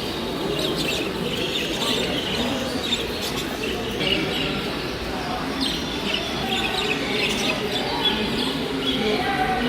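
Many small caged finches chirping and tweeting at once, short overlapping calls with no pause, over a steady murmur of people talking.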